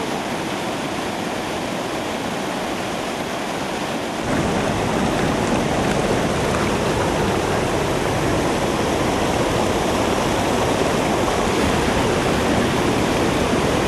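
Floodwater rushing in a steady noisy wash, stepping up louder and fuller about four seconds in.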